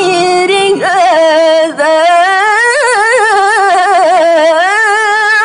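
A woman's voice in melodic Quran recitation (tilawah), holding long ornamented notes with a fast, wavering vibrato and leaping up to a higher note about a second in.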